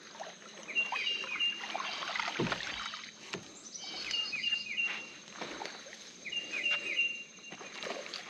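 A small bird singing a short phrase of three or four quick falling notes, three times over, against low outdoor background noise with a few soft knocks.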